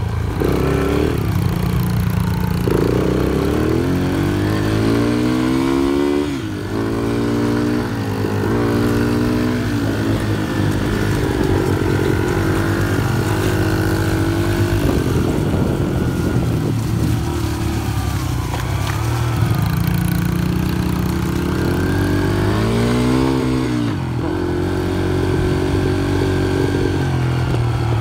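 Small dirt bike engines running close by, their revs dropping and climbing several times in the first ten seconds and again near the end as the bikes slow and speed up.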